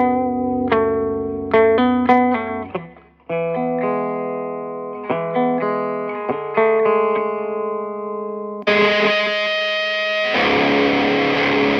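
Electric guitar played through a Peavey Bandit 112 combo amp: clean picked notes and chords, each ringing out and fading. About three-quarters of the way through it switches to a distorted tone with sustained chords.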